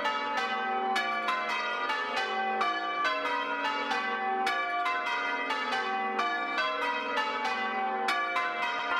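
Church tower bells rung full circle from ropes in change ringing: a steady run of bell strokes at about four a second, each note ringing on into the next.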